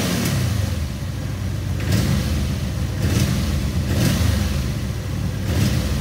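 Honda VF750 Magna's V4 engine idling roughly and blipped with the throttle a few times, stumbling and hesitating right off idle with spits and sputters. It is a sign of clogged carburetor idle circuits, which the mechanic traces to the left-bank carbs after the bike sat for about ten months.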